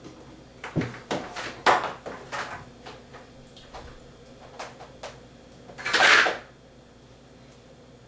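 Knocks and clicks of a person climbing down a steep wooden ladder, a cluster of steps and hand grabs in the first few seconds, then a short, loud rushing noise about six seconds in.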